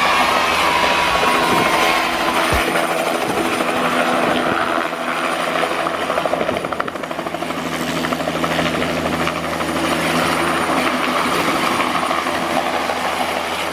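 Helicopter sound running steadily: a rapid rotor chop over a motor whine, with a falling tone in the first second or two.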